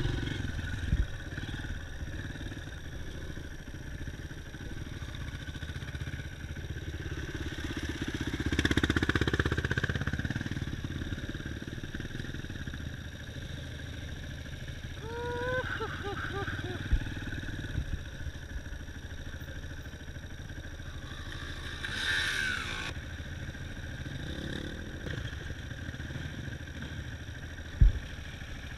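Dirt bike engine running steadily while riding off-road, swelling louder about nine seconds in. A sharp knock comes near the end.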